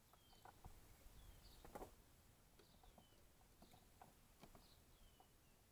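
Faint songbird calling over and over, a short high note followed by a falling slide, about once a second. Scattered small clicks and one soft knock about two seconds in.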